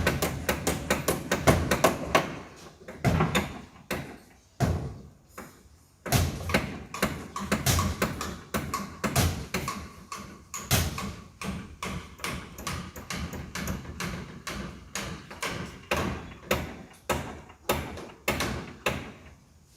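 Hammer blows on a construction job heard from a distance: runs of sharp knocks, several a second, broken by short pauses, each knock with a brief ring after it.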